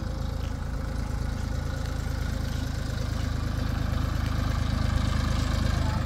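Tractor diesel engines running steadily as a forage harvester rig and a second tractor pulling a trolley work side by side, growing gradually louder as the trolley tractor draws alongside.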